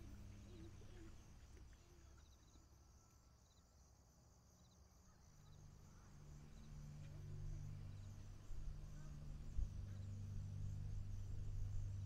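Faint outdoor ambience: scattered short bird calls over a low steady hum that grows louder in the second half, with a single brief knock near the end.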